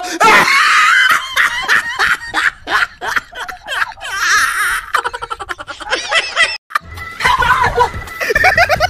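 Laughter in a long run of quick, repeated bursts, loudest at the start, with comic music underneath.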